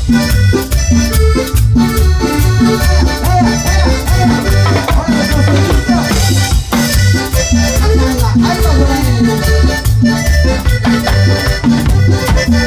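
Live band playing upbeat Latin dance music. Electric bass and a drum kit keep a steady, even beat under an accordion-like keyboard melody, with a shaker-like rattle on top.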